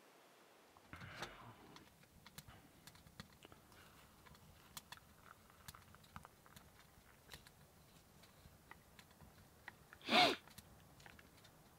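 Light, scattered clicks and taps of hands handling small objects. About ten seconds in comes one brief, louder sound whose pitch bends up and then down.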